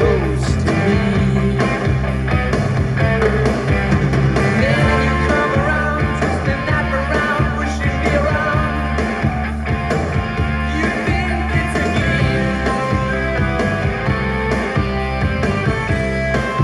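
Rock music with guitar played through a vintage Pioneer stereo receiver and its speakers, running steadily at a loud level.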